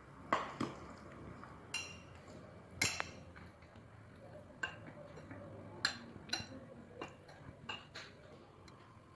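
Metal wire whisk clinking and tapping against a glass bowl in irregular strokes, stirring hot cream into chopped chocolate for a ganache.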